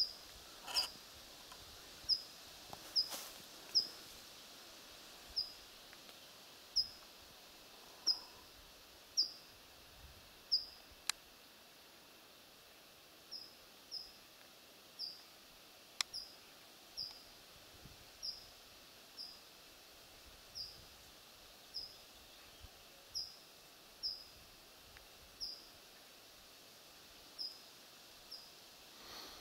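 A small bird repeating a short, high, slightly falling call about once a second, over quiet woodland background noise, with two faint ticks in the middle.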